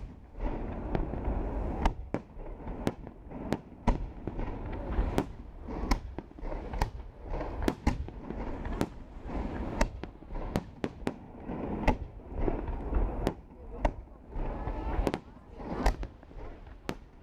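Fireworks display: aerial shells bursting one after another, sharp bangs about a second apart and sometimes in quick clusters, over a continuous low rumble.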